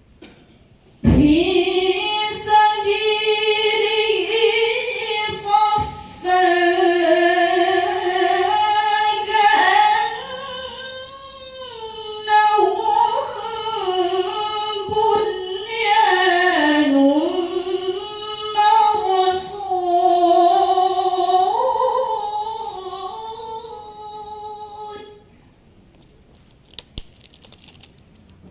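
A woman reciting the Qur'an in the melodic tilawah style: one long, ornamented melismatic phrase, her voice holding and bending high notes, with a few short breaths. It starts about a second in and stops a few seconds before the end.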